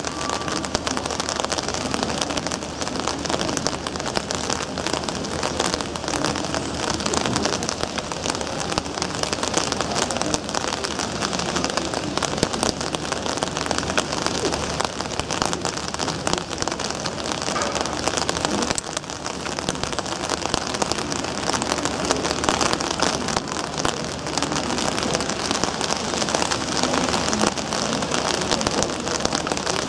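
Steady rain falling on hard surfaces: a dense, even hiss of drops that holds at one level throughout.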